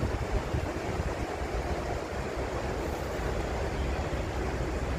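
Steady rumbling background noise, strongest in the low end, with no distinct tones or knocks.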